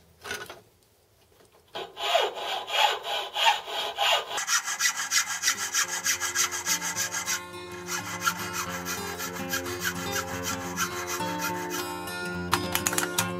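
Hand file rasping back and forth across a small metal casting held in a bench vice, in quick strokes about three a second, starting about two seconds in. Background music comes in about four seconds in and plays under the filing.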